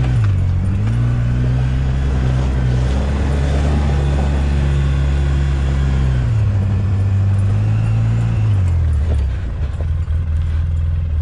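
Cat 259D compact track loader's four-cylinder diesel engine running. It revs up about half a second in and holds there, then drops back in two steps to a lower, steady speed near the end.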